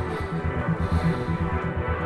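Background music with a steady pulsing beat and sustained synth tones.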